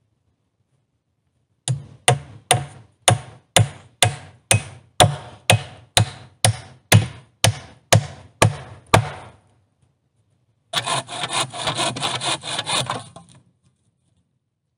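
Hatchet striking wood in a steady rhythm: about sixteen sharp blows, two a second. After a short pause comes a scraping, rubbing sound lasting a couple of seconds.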